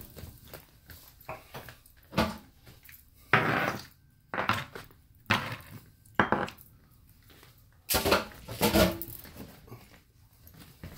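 A puppy worrying crushed raw chicken wings on a plastic cutting board over a tile floor: a string of about seven short, loud scuffing and knocking bursts, irregularly spaced, with the loudest cluster near the end.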